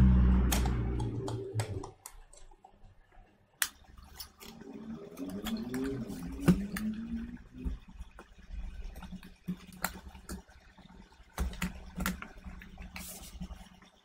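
Handling noise inside an opened Mac Mini: scattered sharp clicks and knocks of plastic and metal as an internal plastic spacer is pressed into place and the aluminium case is shifted by hand. A low hum fades out in the first two seconds.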